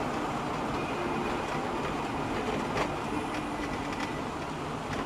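Steady vehicle rumble and road noise, with a few light clicks.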